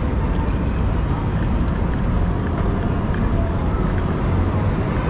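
Steady wind rumble on the microphone of a camera riding on a moving electric kick scooter, with faint city street noise underneath.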